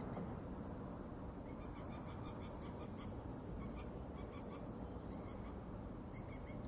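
Birds giving short calls in quick clusters, busiest in the middle, over a steady low background rumble.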